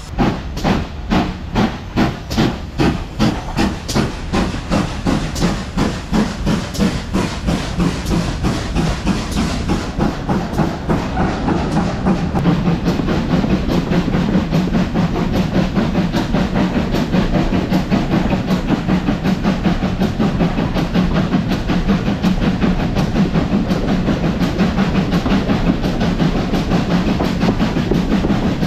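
Steam locomotive Wightwick Hall, a GWR 4-6-0 Modified Hall, chuffing as it pulls away, heard from the carriage just behind its tender. Strong exhaust beats come about two a second at first, then quicken and merge into a rapid steady beat over a low rumble from about ten seconds in.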